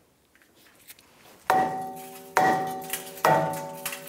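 Three dead blow hammer strikes on a cast-iron brake rotor, under a second apart, each a sharp knock followed by the rotor ringing out in several clear tones that die away. The blows are knocking the rotor loose from the hub, where it is probably rusted on.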